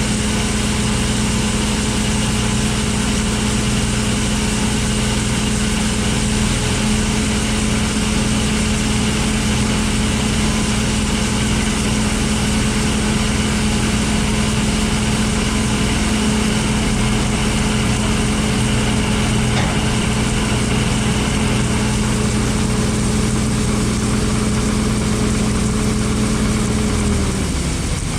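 John Deere 9500 combine running steadily with a constant machinery hum; near the end its pitch drops sharply as it winds down.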